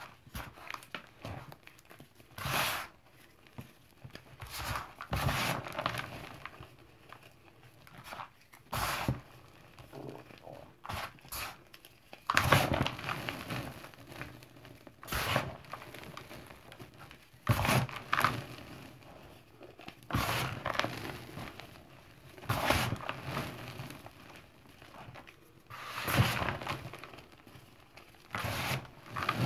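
Hands crushing and crumbling clumps of gym chalk and cornstarch powder, squeezing handfuls and sifting them back into the bowl: soft, irregular crunches and powdery crumbling that come in surges every second or two.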